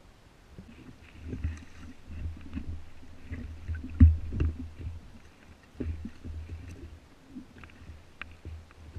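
Inflatable dinghy being rowed: irregular splashes and knocks of the oars with low thumps, the loudest about four seconds in.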